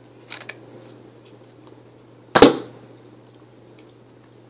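Nerf Triad EX-3 spring blaster being primed with a few small clicks near the start, then firing a foam dart with one loud, sharp shot about two and a half seconds in.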